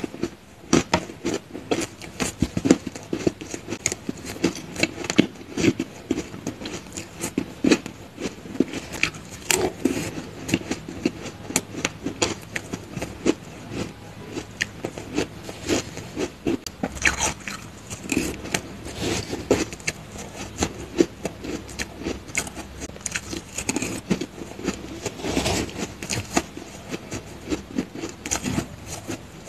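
Close-up crunching and chewing of mouthfuls of purple crushed ice, with a metal spoon scraping into the heap of ice. The crunches come thick and irregular throughout, with louder bites now and then.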